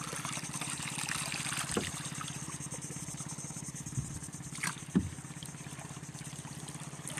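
Small outrigger pump boat's engine running steadily, with water trickling around the hull and a couple of sharp knocks about five seconds in.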